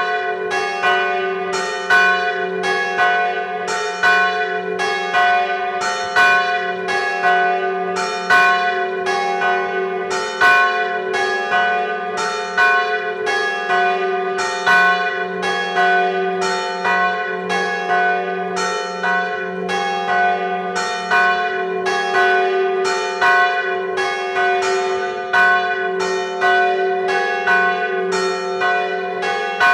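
Church bells tolling a death knell from close inside the belfry. The large bell swings in full peal with its loudest strokes about every two seconds, while two smaller bells strike alternately in between, all over a steady low hum from the ringing bells.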